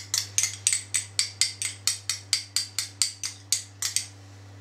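Metal teaspoon stirring mayonnaise and sour cream in a small glass bowl, clinking against the glass about four times a second. The clinking stops about four seconds in.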